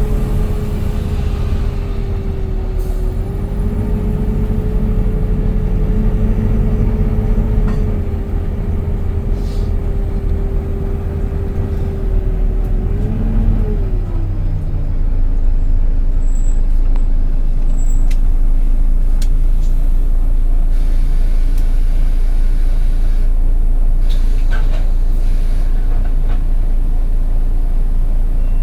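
Volvo B9TL bus's six-cylinder diesel and drivetrain running on the move, with a steady whine that drops in pitch about halfway through and then holds lower while the running gets slightly louder and even.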